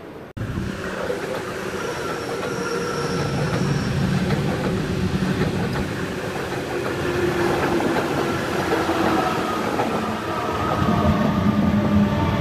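Sydney Trains Waratah double-deck electric train approaching and running past close by: steady rumble of wheels on the rails with a faint electric motor whine, growing louder as the cars go by near the end.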